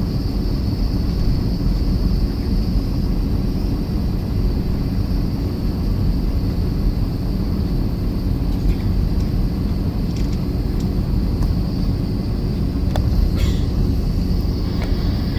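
Steady low rumble of an airliner taxiing, engines and cabin air heard from inside the passenger cabin, with a couple of faint clicks near the end.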